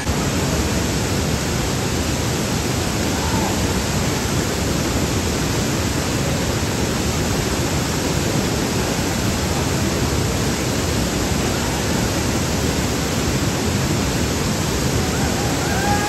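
Tirathgarh waterfall pouring into its plunge pool: a steady, loud rush of falling water.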